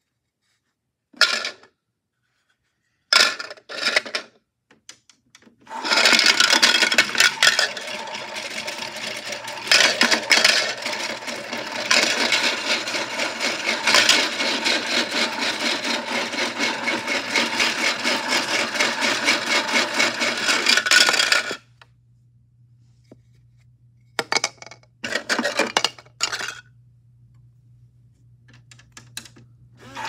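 Washmatic toy washing machine running with cookies inside: a small electric motor hums steadily while the cookies rattle and scrape hard against the plastic drum. About two-thirds of the way through the rattling stops suddenly, leaving the hum and a few short clatters. A couple of short handling clicks come first.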